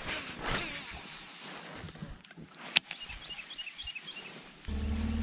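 Jacket and fishing gear rustling as a rod and a fish are handled in a kayak, with one sharp click a little past halfway and a short run of quick high chirps just after it. Near the end a steady low hum starts suddenly.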